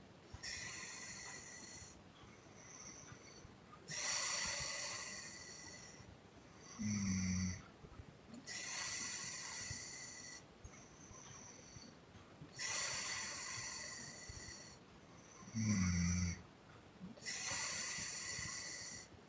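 A sleeping woman snoring and puffing in a steady rhythm: long hissing out-breaths blown through the lips about every four seconds, and twice a short low snore on the in-breath.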